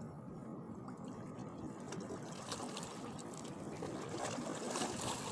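Water lapping and trickling against shoreline rocks, a steady wash with a few faint clicks.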